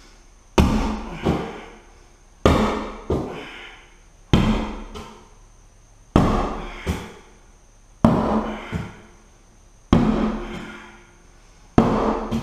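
Glock 78 field knife stabbed over and over into an interior house wall: seven hard knocks about two seconds apart, each followed by a smaller knock about half a second later.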